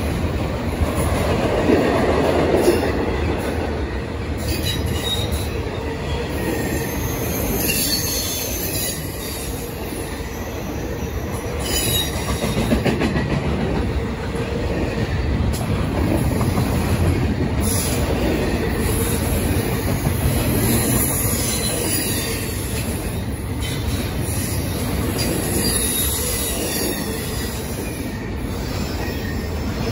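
Norfolk Southern double-stack intermodal freight train rolling past: a steady rumble of steel wheels on rail from the container cars, with faint high wheel squeals coming and going.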